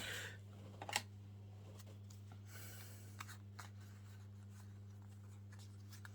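Faint rustling and clicks of Pokémon trading cards being handled and slid over one another, with the sharpest clicks at the start and about a second in, over a steady low hum.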